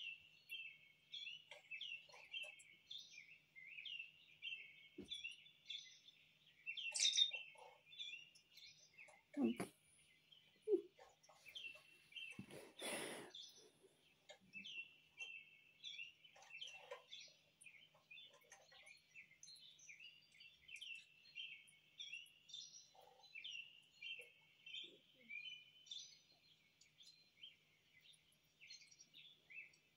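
Small songbirds chirping and twittering continuously from a bird-watching video played through a tablet speaker. A brief rustling noise comes about halfway through.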